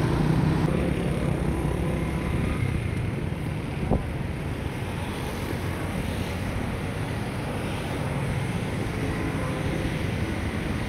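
Motorbike engine running steadily, with road traffic around it, as heard while riding along a city street. A single sharp knock comes about four seconds in.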